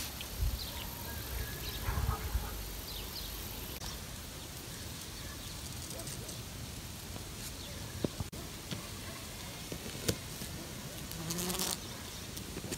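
Buzzing of the small electric brushed motors of RC truggies at a distance, with short rises and falls in pitch and a few sharp knocks.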